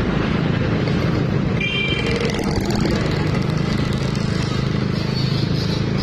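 Steady roadside traffic noise: engines and tyres of passing vehicles, motorcycles among them. A brief high-pitched tone, like a short horn or whistle, sounds about one and a half seconds in.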